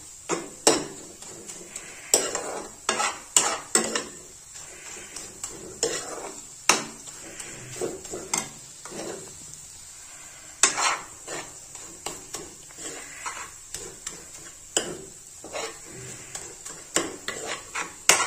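Steel spoon scraping and tapping against a nonstick kadhai in irregular strokes while stirring grated potato halwa as it fries in ghee, with a low sizzle underneath.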